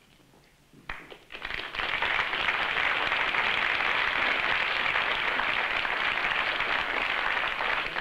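Audience applauding: the clapping starts suddenly about a second in, quickly swells, and then holds steady.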